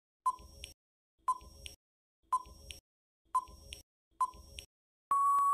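Quiz countdown timer sound effect: five short ticks about a second apart, then a long steady beep near the end marking time up.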